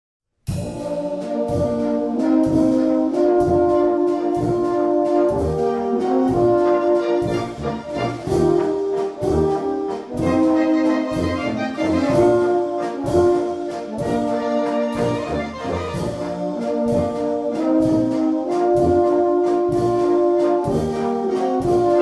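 Brass band music with a steady beat: held brass notes over regular drum strikes, starting abruptly about half a second in.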